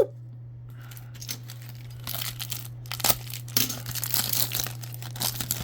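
Card-pack wrappers crinkling while trading cards are handled, in irregular crackly bursts from about two seconds in, over a steady low hum.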